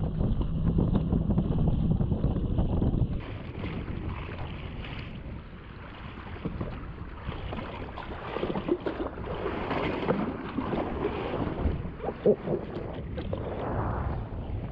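A jet ski's engine runs under loud wind buffeting on the microphone. About three seconds in this cuts off suddenly, leaving quieter irregular slapping and lapping of small waves against the hull as the ski drifts.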